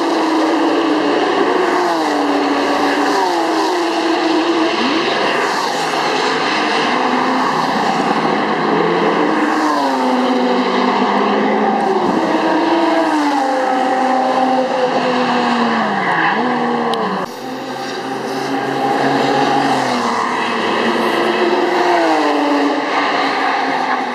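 Sports car engine at race speed on a track, the pitch climbing through the revs and dropping back at each gear change, then falling away for corners, over and over. The sound dips abruptly for a moment about two-thirds of the way through.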